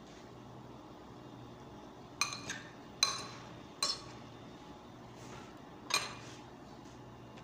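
Metal spoon clinking against a glass bowl as a salad is stirred: about five sharp, ringing clinks, the first two close together about two seconds in and the last near six seconds.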